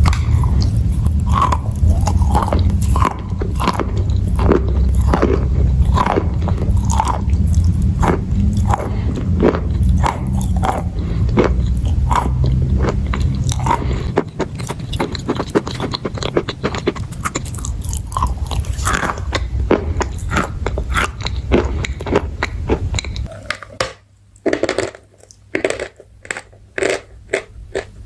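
Close-miked chewing of crunchy chalk and clay: a dense run of sharp crunches and bites. A low steady hum lies underneath until near the end, and after a short pause the crunching resumes.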